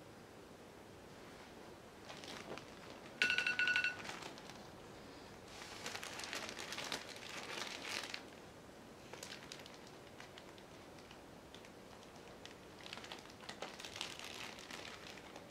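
A phone countdown timer's alarm beeps briefly about three seconds in as the countdown runs out, the loudest sound. Then plastic bags crinkle and rustle in two spells as hands handle the hanging load bag and pour more weight into it.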